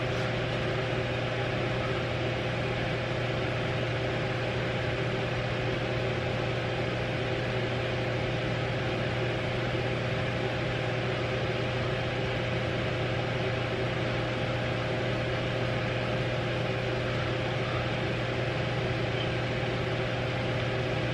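Electric fan running steadily: an even rush of air with a low motor hum and a thin, steady tone above it.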